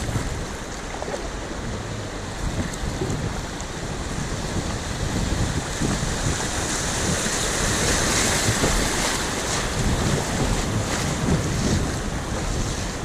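River water rushing and splashing around an inflatable kayak on the move, with wind buffeting the microphone. The water's hiss swells louder about halfway through, then eases slightly.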